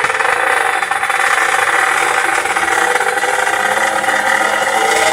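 Two-stroke underbone drag bike engine running loud at high revs, with a fast rasping exhaust note. Its pitch climbs slightly near the end.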